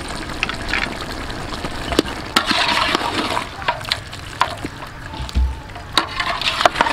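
Metal ladle stirring a pot of duck curry broth mixed with red weaver ants, the liquid sloshing, with several sharp knocks of the ladle against the pot.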